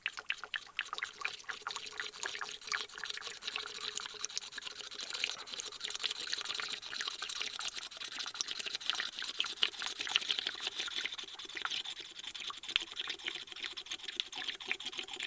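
Motor oil glugging as it is poured from a bottle through a funnel into an engine's oil filler neck, a steady stream of bubbling gurgles.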